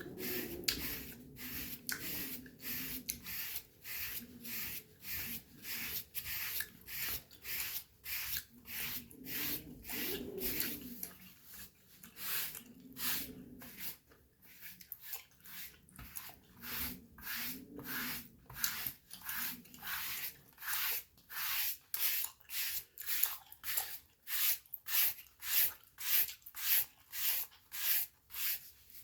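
Dry brush bristles stroking across skin in a steady rhythm, about two scratchy strokes a second.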